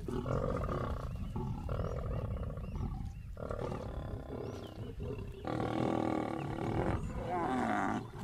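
Lions growling over a kill in a series of rough bouts a second or two long: a contest over who feeds at the carcass.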